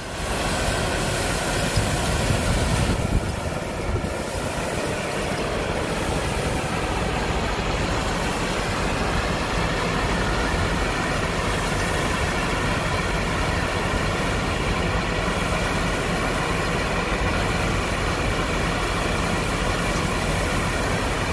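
Belt conveyor running, with paddy rice pouring off its end roller into a wooden boat's hold: a steady mechanical rumble.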